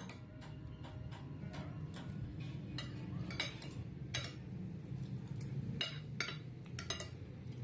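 Metal spoons clinking and scraping against plates and a plastic food tub at a meal, in irregular light clicks every half-second or so, over a steady low hum.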